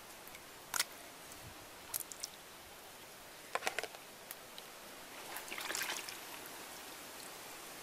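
Live river crabs being handled in a plastic bucket of water: several sharp clicks and knocks as the crabs are lifted out and set in a plastic bowl, then a longer splash and slosh of water about five and a half seconds in as a hand reaches into the bucket.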